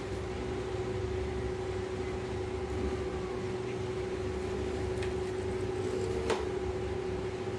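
A steady hum with a constant pitched drone over a low rumble, and one sharp click a little after six seconds in.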